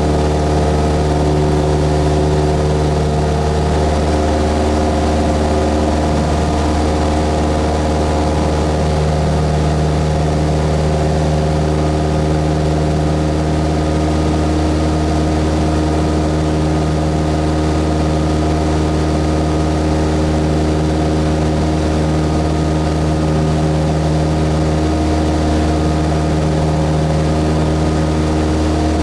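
Cessna 172S's four-cylinder Lycoming engine and propeller running steadily, a constant even drone.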